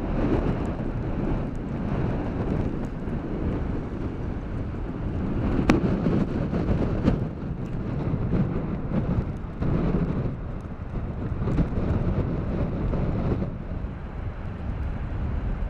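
Wind buffeting the microphone in uneven gusts, a low rumbling noise that swells and eases every second or two.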